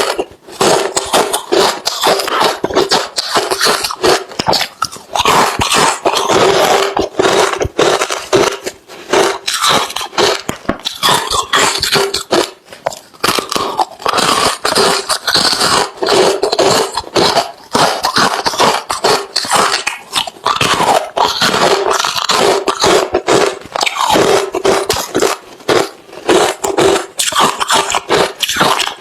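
A person chewing hard refrozen crushed ice close to the microphone: loud, rapid crunching and cracking with brief pauses between bites.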